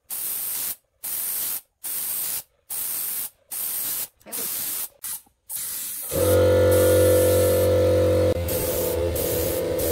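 Short bursts of spray hiss, about one a second, each cut off sharply, typical of an aerosol can being sprayed in squirts. About six seconds in, a steady hum made of several held tones takes over.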